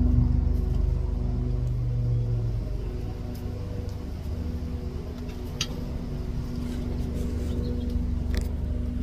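Steady low rumble of an engine or motor running, with a droning tone over it and a few faint ticks.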